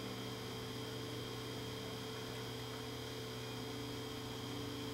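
Steady electrical mains hum: a low, unchanging hum made of several even tones, with fainter high tones above it.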